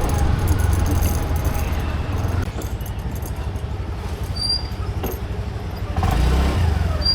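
Scooter riding on a city street: a steady low rumble of engine and road noise, louder for the first couple of seconds, easing off, then rising again near the end.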